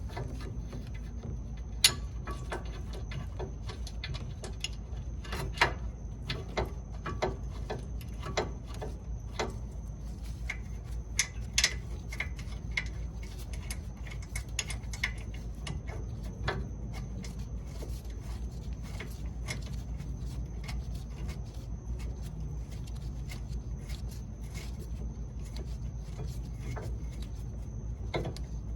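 Scattered clicks, taps and light metallic knocks of hand tools and brake parts being handled during a rear brake pad and rotor change, busiest in the first half, over a steady low hum and a faint high whine.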